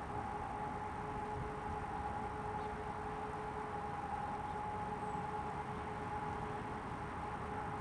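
Faint distant civil-defence siren holding one steady tone, over a low background rumble.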